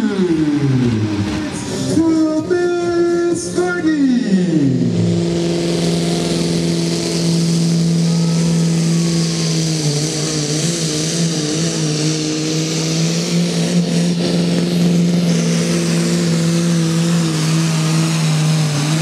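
Diesel engines of farm-class pulling tractors. In the first five seconds an engine's revs fall away twice, then a Massey Ferguson pulling tractor's diesel runs flat out under load, holding a steady high note as it drags the weight sled.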